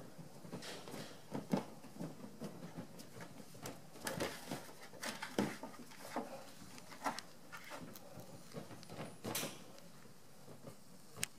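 Black bear cubs scrambling over a corrugated plastic culvert den: irregular light knocks, scrapes and thumps of claws and paws on the plastic, with a few sharper knocks scattered through.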